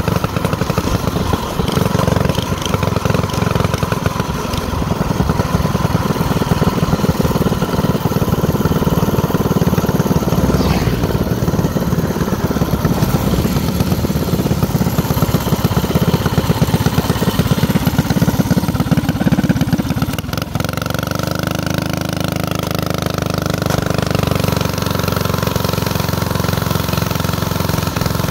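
Motorcycle engine running under way, a steady pulsing drone. About twenty seconds in it eases off, the note drops for a moment, then settles smoother and lower.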